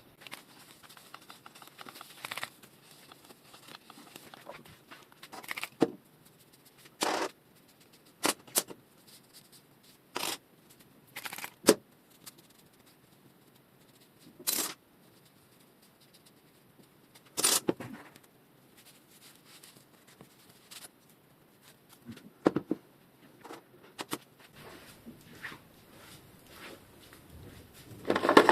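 Bicycle headset parts being handled during disassembly and inspection: scattered sharp clicks and taps of small metal parts, with short scraping and rustling sounds in between, at irregular intervals.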